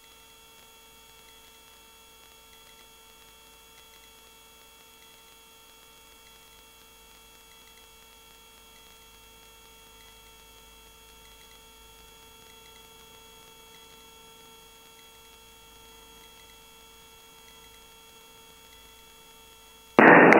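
Faint steady electrical hum made of several constant tones over a low hiss, with no rotor or engine noise coming through.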